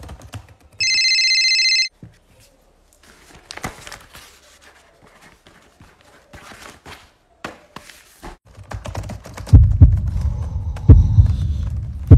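A steady electronic beep lasting about a second, then quiet laptop-keyboard typing and pen scratching on paper. Near the end come several loud, deep booming thumps, each trailing a low rumble.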